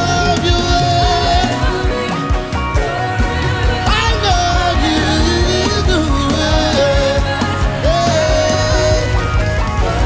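Live worship band music at full volume: a steady beat of drums and bass under long held, wavering melody notes.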